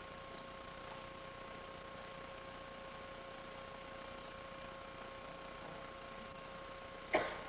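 Steady electrical hum and hiss from an old video recording, with one short, sharp burst of sound near the end.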